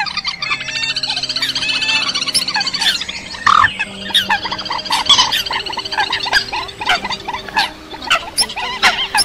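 Edited lure recording of Eurasian coot calls layered with calls of other rails, many birds calling at once. For about the first three seconds it is a dense, fast trilling chatter; after that come separate sharp short notes and squawks.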